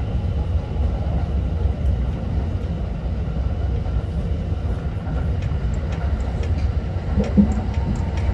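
Running noise of a Kintetsu electric local train, heard from inside the front car: a steady low rumble of wheels on rail with faint clicks. A brief louder tonal sound stands out about seven seconds in.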